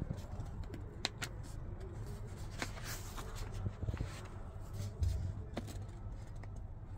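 Pages of a paper manual being turned and handled with a gloved hand: a few short, sharp paper rustles and clicks over a low handling rumble, with a dull thump about five seconds in.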